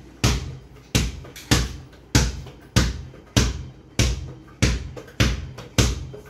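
A child dribbling a rubber ball on a bare stone floor: a steady run of about ten bounces, roughly one every 0.6 seconds, each followed by a short ring.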